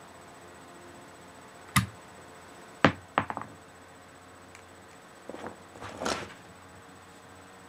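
Hard plastic clicks and clacks of a LEGO model being worked: a sharp snap about two seconds in, another near three seconds followed by a couple of lighter clicks, then softer rattling clatters around five to six seconds.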